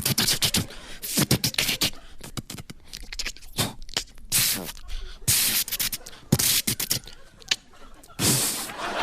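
A man making sound effects with his mouth into a microphone: quick runs of clicks and snaps broken by short hissing bursts.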